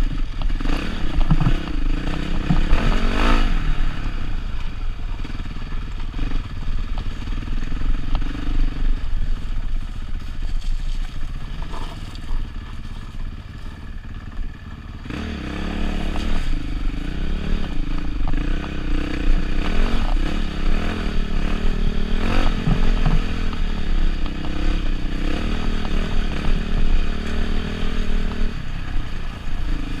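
KTM 990 adventure motorcycle's V-twin engine pulling at low speed over loose rock, with stones clattering and scraping under the tyres. The engine eases off for a few seconds past the middle and picks up again at about 15 seconds.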